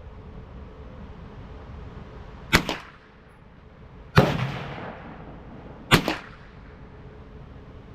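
Three single gunshots about a second and a half apart, each with a short echo; the middle shot is the loudest and rings on longest.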